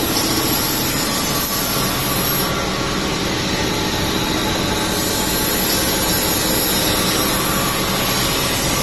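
Amada Quattro 1 kW CO2 laser cutting machine running, a steady rushing mechanical noise that drops a little about two and a half seconds in and swells again after about five seconds.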